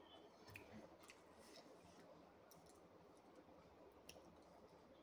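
Near silence with a few faint, scattered clicks from someone eating with her fingers: small mouth and finger-on-plate sounds.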